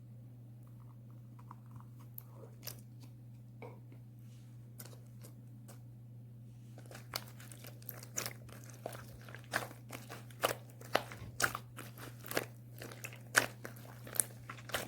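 Slime being squeezed and pressed by hand, giving sharp clicks and pops: a few scattered ones at first, then from about halfway a fast, louder run of them.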